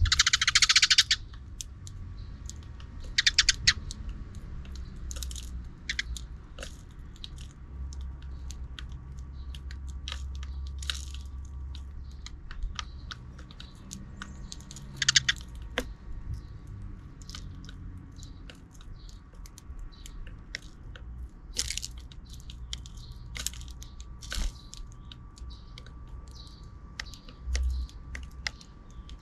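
Sparrows chirping in short, scattered bursts, mixed with many quick dry clicks and crackles, with a louder flurry right at the start.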